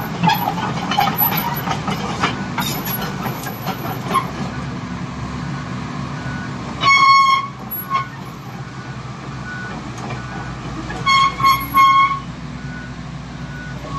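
A horn sounding over a steady rumble of vehicle noise. There is one blast about seven seconds in, then three short toots around eleven to twelve seconds. Scattered clicks sound in the first few seconds.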